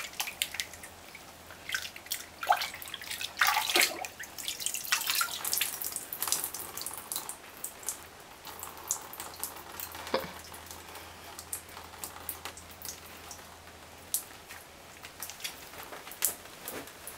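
Water splashing in a plastic bucket as a wet baby rabbit is washed and lifted out, with splashing in the first few seconds and then scattered drips.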